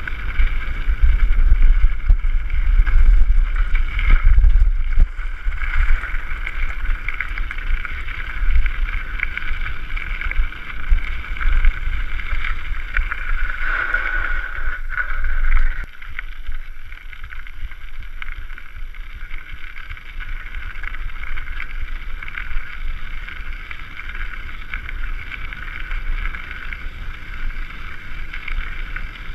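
Wind buffeting the microphone and the running noise of a mountain bike rolling fast down a gravel track. It gets quieter about halfway through.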